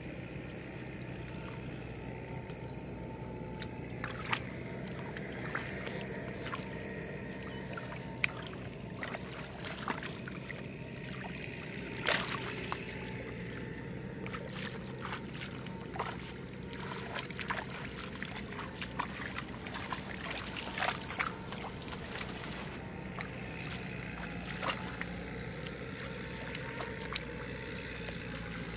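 Shallow water sloshing and splashing, with many short sharp splashes and clicks over a steady low hum.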